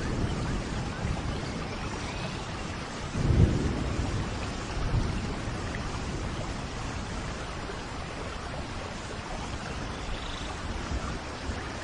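Steady rainfall, with a low roll of thunder about three seconds in and a fainter rumble soon after.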